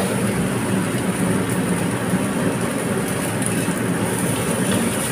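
Rice, dried anchovies and peanuts sizzling in a wok as a spatula stirs and scrapes through them, over a steady low hum.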